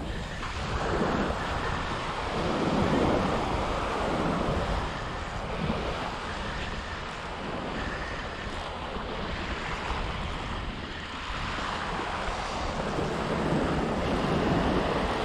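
Ocean surf washing onto a beach, swelling and easing every few seconds, with wind rumbling on the microphone.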